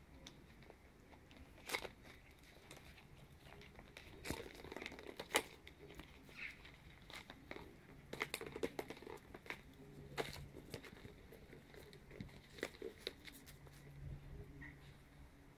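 Ten-week-old chihuahua puppies playing and scampering on a concrete floor: faint, scattered taps, scuffs and rustles, with a few sharper clicks.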